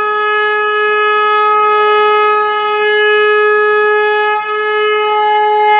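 A conch shell (shankh) blown in one long steady note, with a brief dip in loudness about three quarters of the way through.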